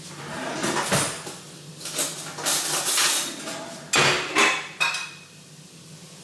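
Plates and cookware clattering on a kitchen counter: a string of clinks, knocks and scrapes as dishes and utensils are handled and set down, ending in a few sharp knocks, the last with a short ring.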